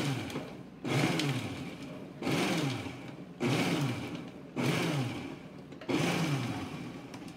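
Moulinex food processor pulsed six times, a little over a second apart, its motor spinning up and winding down with each pulse as it coarsely chops garlic and parsley in olive oil.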